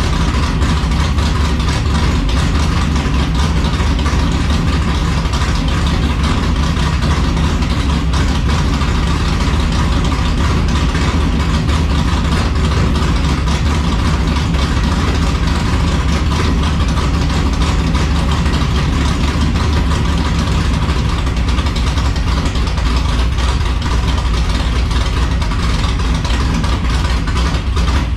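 Chevy S10 pickup's 383 stroker small-block V8 idling steadily through its headers, a deep, even exhaust note with no revving.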